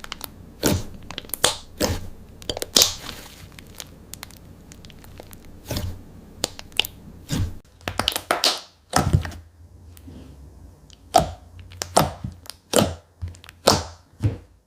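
Iridescent slime being stretched and squeezed by hand, giving irregular wet pops and clicking crackles as air pockets burst.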